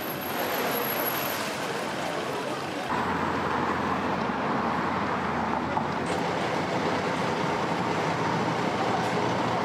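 Steady background noise with no distinct events, of the kind heard from road traffic; it gets a little louder about three seconds in.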